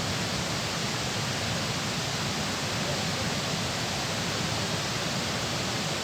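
Steady rush of water pouring through a dam.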